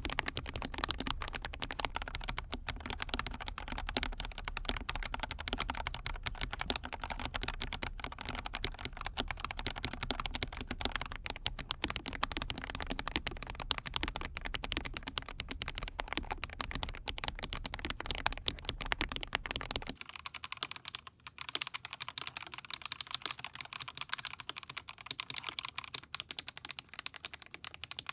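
Mechanical keyboard with KTT Baby White linear switches being typed on continuously: a fast, dense run of key clacks. About twenty seconds in, the deep background underneath drops away and the keystrokes sound lighter.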